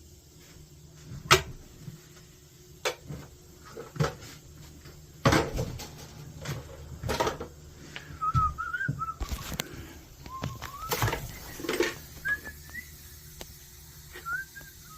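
Someone whistling a wandering tune in short phrases during the second half, over scattered knocks and clanks of work; the loudest knocks come about one and a half and five seconds in.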